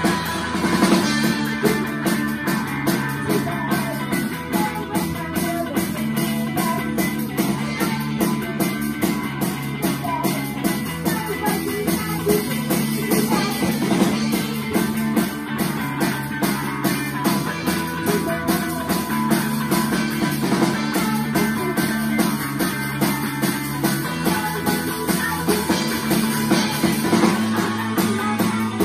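A live rock band playing a song: guitars over a full drum kit, with the drums coming in hard about half a second in.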